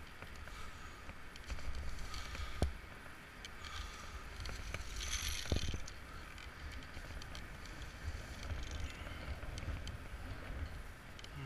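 Wind rumbling on a body-mounted camera's microphone during a rope descent, with rustling and a few sharp clicks from the rope and rappelling hardware, and a brief hissing rustle about five seconds in.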